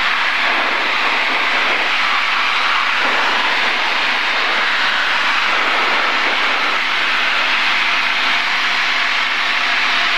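Cabin noise of a single-engine light aircraft in flight: a steady engine and propeller drone mixed with airflow, with a faint constant low hum.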